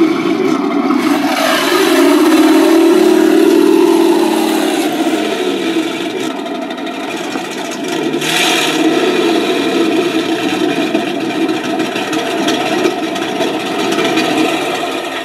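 Engine running through a Benedini Panther exhaust, revved up and down. The note climbs, holds high for a few seconds, sags, and climbs again, with a short harsh burst in the middle.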